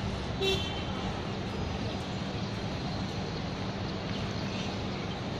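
Steady rumble of distant city street traffic, with a brief high-pitched chirp about half a second in.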